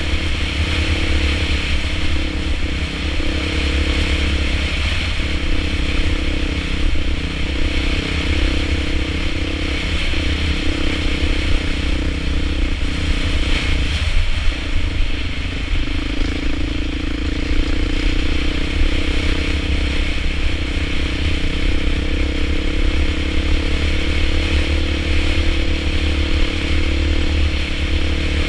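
Dirt bike engine running steadily while the bike is ridden along a rough trail. The engine note breaks off briefly about halfway through, then settles back to a steady note.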